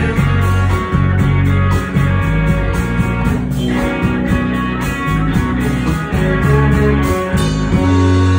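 Live band playing without vocals: electric guitars over bass and drums. Near the end the drums stop and a chord is held.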